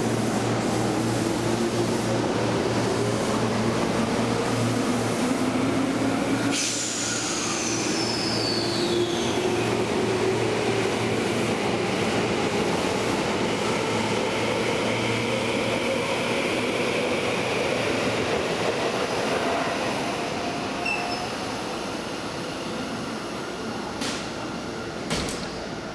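Seibu 6000 series electric train pulling into the platform and braking to a stop: rumbling wheels on the rails, with motor whine that shifts in pitch as it slows. A high tone sweeps down about seven seconds in, and the sound fades after about twenty seconds, with a few sharp clicks as the train halts.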